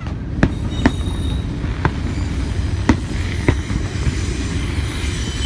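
Fireworks going off: about five sharp bangs at uneven spacing over a steady low rumble.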